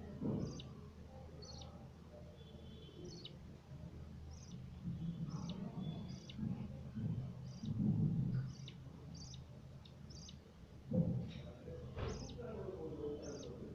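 Budgies giving short, sharp, high chirps, about one or two a second, with a dull bump about three quarters of the way through.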